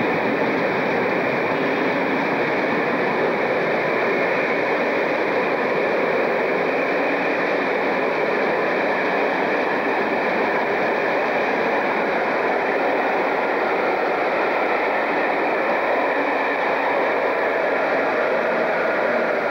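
An InterCity electric train at a station platform, making a steady, unbroken noise with no horn and no clear wheel-beat.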